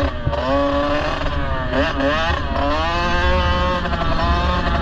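Kawasaki KX65's two-stroke single-cylinder engine revving up and down as the dirt bike is ridden, its pitch rising and dropping several times, over a low rumble.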